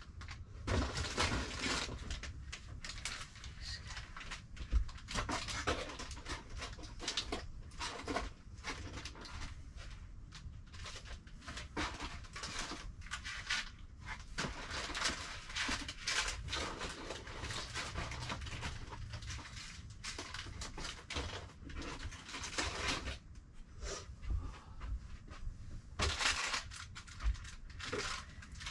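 Rummaging through cardboard boxes and bags: irregular rustling, crinkling and shuffling of packed items being handled.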